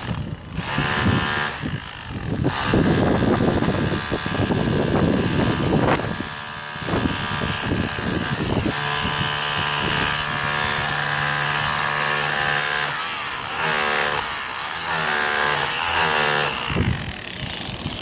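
A machine's motor running loud and continuous, with a steady whine. In the last few seconds the pitch wavers up and down repeatedly before it dies away near the end.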